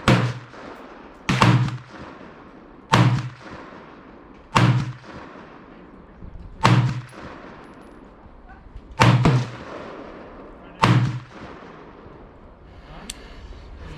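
Gunshots fired one at a time, about seven in a row spaced one and a half to two and a half seconds apart, each a sharp crack with a booming low thump and a ringing tail that fades out.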